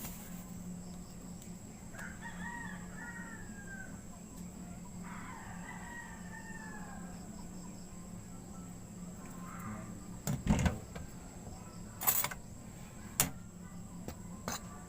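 A rooster crowing twice, each crow a long pitched call of about a second and a half, over a steady low hum. Near the end come three sharp knocks.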